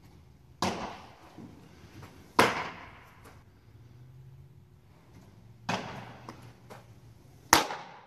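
A baseball smacking into leather gloves during a throwing session, four sharp pops in two pairs, each with a short echo off the large indoor hall; the second and fourth are the loudest.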